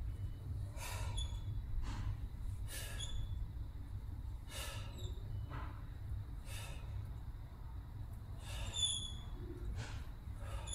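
A man breathing hard while lifting weights: a sharp, forceful exhale with each preacher-curl repetition, about eight in all at one- to two-second intervals. There are a few short high squeaks and a steady low hum underneath.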